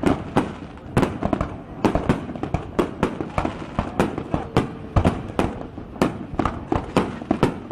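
Fireworks display: a rapid, irregular barrage of aerial shell bangs and crackles, several a second, recorded on a mobile phone.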